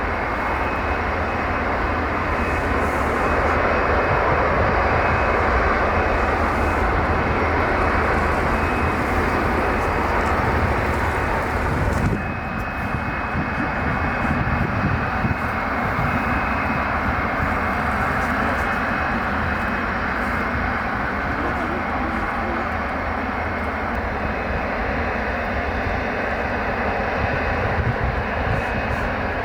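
Jet airliner engines running steadily, a continuous noise with a faint high whine. About twelve seconds in the sound drops abruptly and then carries on.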